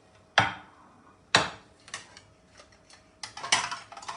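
A metal utensil knocking against a cooking pot: two sharp clinks with a short ring, a few lighter ticks, then a quick clatter near the end.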